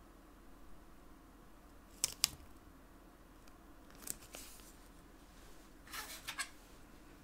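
Faint, crisp handling sounds of a washi tape strip being peeled from its backing and pressed onto a notebook page: a quick pair about two seconds in, another around four seconds, and a short cluster near six seconds.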